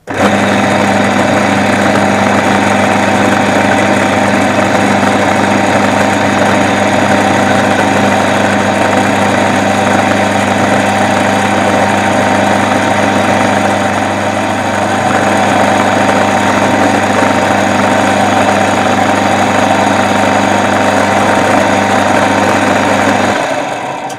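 Drilling machine running steadily with a mains motor hum as a 3.3 mm drill bores a tapping hole in a small metal part. Near the end the motor is switched off and it runs down.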